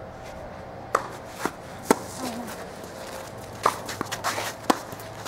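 Tennis ball being struck and bouncing during a doubles rally: about four sharp pops at uneven spacing of roughly one to two seconds, with players' footsteps shuffling on the hard court.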